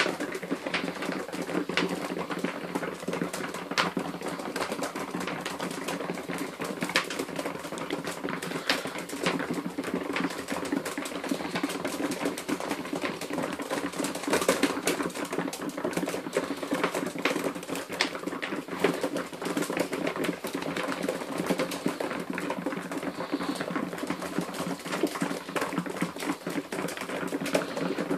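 A flock of pigeons pecking seed off a loft floor: a dense, irregular patter of quick beak clicks, like fast typing.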